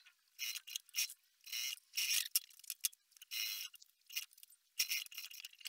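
Industrial straight-stitch sewing machine stitching bias binding onto a fabric flap, running in short stop-start bursts with brief pauses between them.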